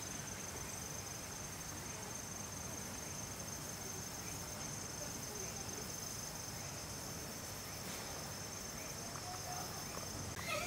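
An insect's steady high-pitched trill held at one pitch over faint background noise; it stops near the end.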